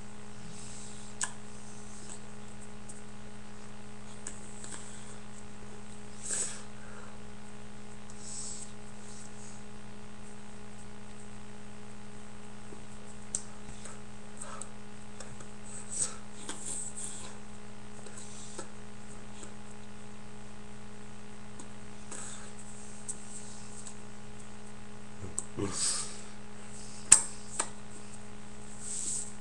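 Steady low electrical hum from the recording setup, with scattered faint clicks and rustles and one sharper click near the end.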